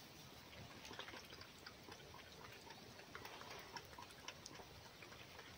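Faint, irregular small wet clicks, a few a second, of a fox lapping water from a cupped hand.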